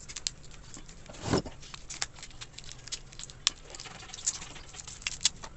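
Faint, scattered light clicks and taps of small steel ball bearings being handled and turned in the hands, with one soft thump about a second in.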